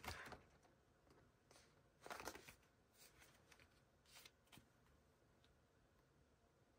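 Faint rustling of paper and sticker sheets being handled. One louder rustle comes about two seconds in, then a few soft ticks and taps.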